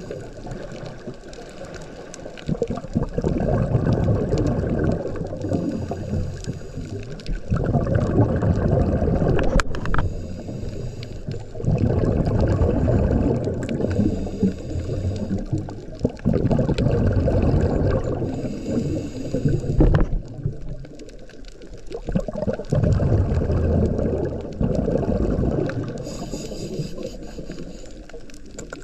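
Underwater bubbling rumble from a diver's exhaled air: low, noisy bursts a few seconds long alternating with quieter stretches, in the rhythm of breathing. A single sharp click about ten seconds in.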